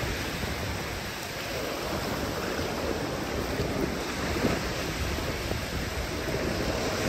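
Surf washing onto a beach: a steady, even rushing of waves.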